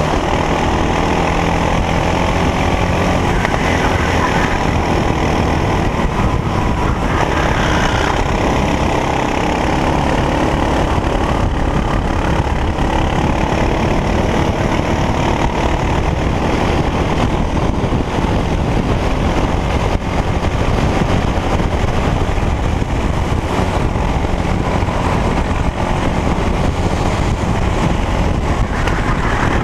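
Racing kart engine running flat out at race speed, heard onboard, its pitch rising and falling as the kart brakes and accelerates through corners.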